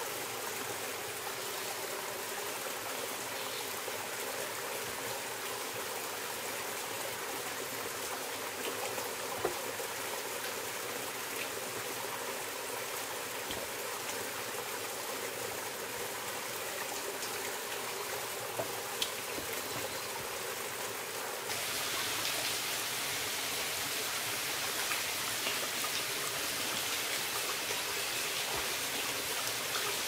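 Steady rush of running water from a jungle stream in the rain, stepping up louder about two-thirds of the way through. A few light knocks stand out from it.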